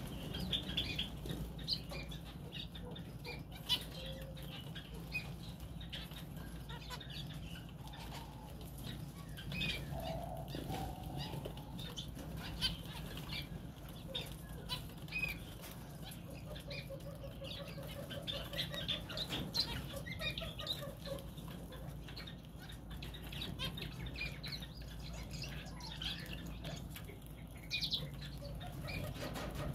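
A mixed flock of aviary finches, zebra finches and Gouldian finches, calling with many short high chirps, with occasional wing flutters as they crowd in to feed from a hand. A steady low hum runs underneath.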